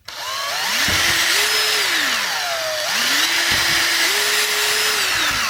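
Small electric drill drilling holes into a quartz clock movement's housing. The motor speeds up and holds, slows down about halfway through, speeds up again, and runs down at the end, with a grinding hiss from the bit cutting.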